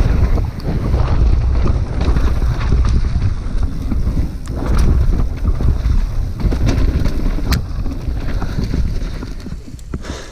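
Wind buffeting the microphone over a low rumble, with scattered clattering knocks from a mountain bike ridden fast over rough ground; it eases off near the end.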